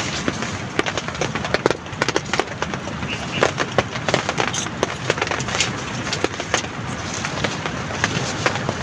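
Heavy rain falling steadily, with many separate sharp drop hits.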